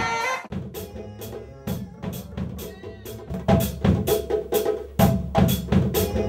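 Music with a steady drum-kit beat, kick and snare over a bass line, starting about half a second in and getting louder a few seconds later.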